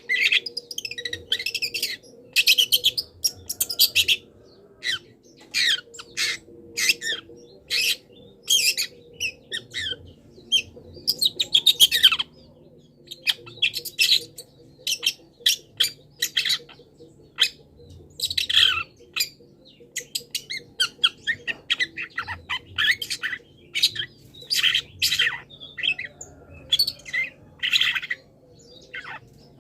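Long-tailed shrike (pentet) singing a rapid string of short high calls, mixing in mimicked songs of other wild birds, in quick runs broken by brief pauses. A faint steady hum sits underneath.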